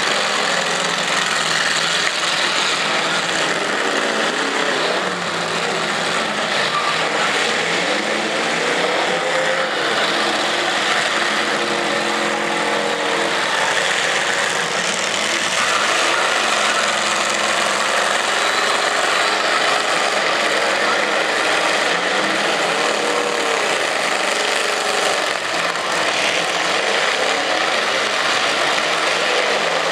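Several demolition derby cars' engines running and revving together, their open exhaust stacks sticking up through the hoods, as the cars push and ram one another. The sound is a continuous, loud roar with engine notes rising and falling throughout.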